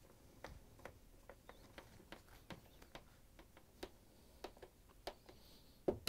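Faint, irregular light clicks and ticks, roughly two or three a second, from a hand-turned Torx T20 screwdriver driving screws into the plastic dishwasher control panel and from the panel being handled. A slightly louder knock comes near the end.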